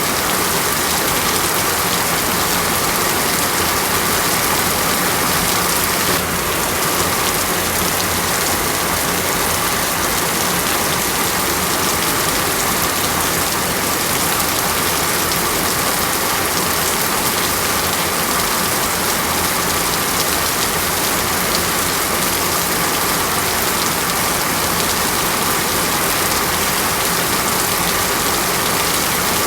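Heavy rainforest rain falling steadily, a dense even hiss with no letup. The texture shifts slightly about six seconds in.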